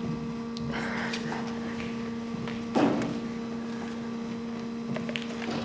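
A steady electrical hum, with one sharp impact about three seconds in.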